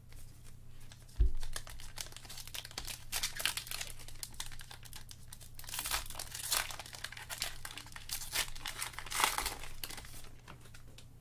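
Trading-card pack wrapper crinkling and tearing in gloved hands, with cards rustling as they are pulled out and handled. A single thump about a second in.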